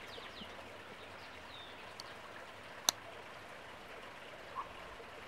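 Slip-joint pocket knife's blade being opened and snapping into place on its backspring: one sharp click about three seconds in, with a fainter click a second before it, over a faint steady hiss.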